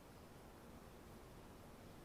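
Near silence: faint, steady room tone with a low hiss.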